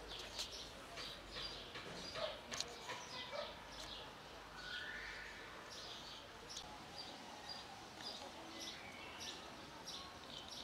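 Small birds chirping repeatedly in short high chirps, a couple a second. A few sharp clicks stand out about two to three seconds in.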